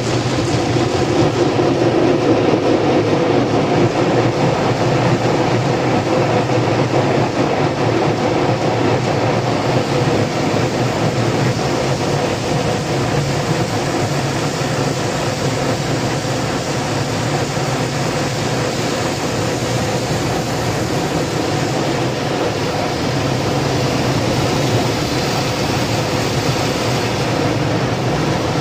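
Automatic drive-through car wash heard from inside the car's cabin: a steady rush of water spray and wash machinery running over the car, muffled by the closed car.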